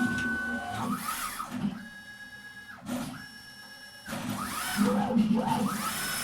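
CNC machine's X and Y axis drive motors making fast traverse moves: a whine that rises and falls in pitch as the axes accelerate and brake. About two seconds in it drops to a quieter steady high tone while the axes pause, and the moves resume about four seconds in.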